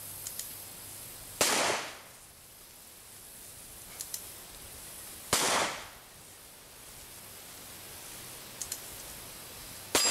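Reproduction Smith & Wesson Schofield single-action revolver fired three times, about four seconds apart, each shot ringing out briefly. Before each shot come two quick clicks of the hammer being cocked.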